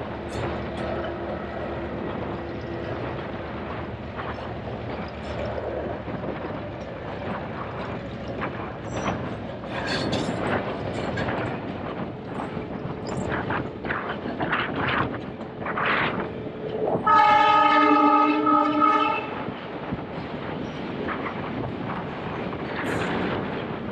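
Passenger train running with a steady rumble and irregular clatter of wheels over the rails. About seventeen seconds in, the train's horn sounds once for about two seconds, the loudest sound here.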